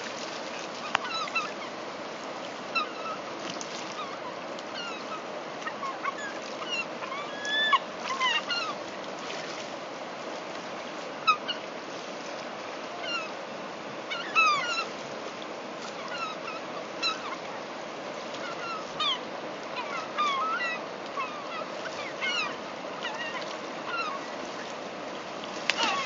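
A flock of gulls calling over and over, many short sharp calls overlapping, over the steady rush of river water, with splashes now and then as birds drop onto the water.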